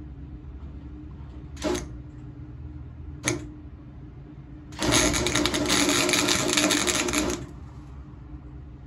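Electric welder tacking sheet-metal body panel: two brief crackling tacks, then a longer crackling weld of about two and a half seconds that stops suddenly.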